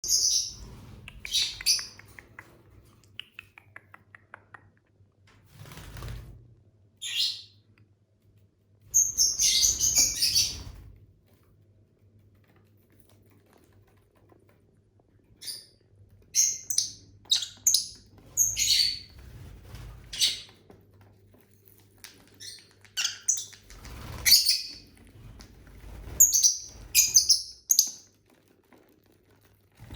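Pet lovebirds chirping and squawking in short, high-pitched bursts that come in clusters with brief pauses between them.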